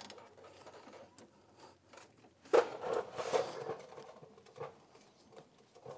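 Small metal clicks and scrapes of a bolt being worked by hand into an ATV shock's lower mount, with a cluster of louder knocks and scrapes about halfway through.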